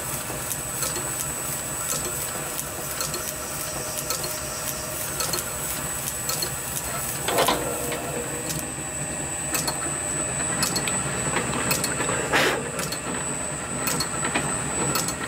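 Small metalworking lathe running with a steady hum and a constant high whine, its tool taking light facing cuts on a brass flywheel, with frequent small ticks and two short scrapes. The brass is being faced a fraction at a time to set the crankshaft's end float.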